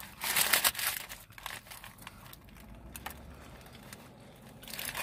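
Paper burrito wrapper crinkling as it is handled and folded back for a bite. There is a loud burst of crinkling about a quarter-second in, quieter rustling and faint clicks after it, and another burst near the end.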